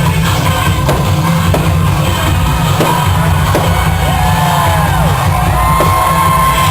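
Loud rock music with a heavy, steady bass, with a crowd yelling and whooping over it.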